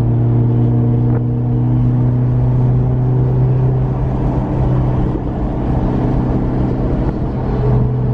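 Car engine running at a steady speed, a constant low drone with no change in pitch.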